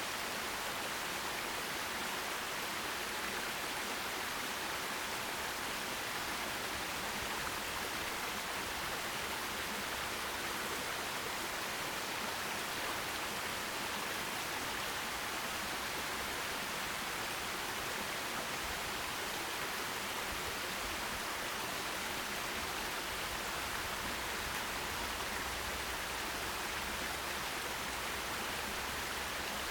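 Forest stream running over rocks: a steady, even rush of water with no change or break.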